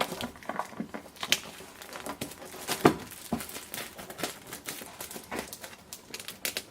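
Seal wrapping on a graphics card box being torn and peeled off by hand: irregular crinkling and crackling with scattered sharp clicks, a few louder ones about a second and three seconds in.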